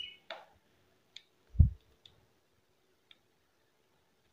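Multimeter probe tips clicking and tapping against a LiPo battery's balance-lead connector pins as the cell voltages are probed: a handful of faint, separate clicks, and one dull low thump about a second and a half in.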